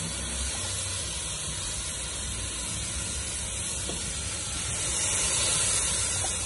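Liquid boiling and hissing in a pot of toasted rice vermicelli, a steady hiss that swells slightly about five seconds in.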